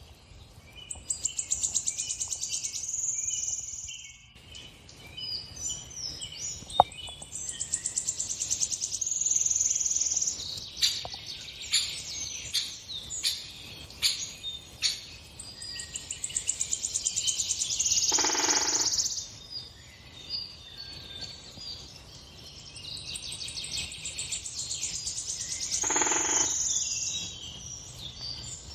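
Songbirds singing, heard from the forest footage playing on a television: rapid high trills and chirps, with two louder, fuller calls midway and near the end. A single sharp click about seven seconds in.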